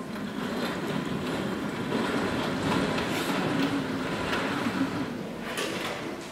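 Stage curtain being drawn open: a steady rushing rumble with a few scattered clicks, swelling about two seconds in.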